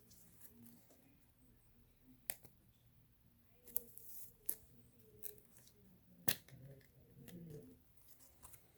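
Trading cards and their foil pack wrappers being handled: a few sharp, separate clicks and snips with soft rustling in between.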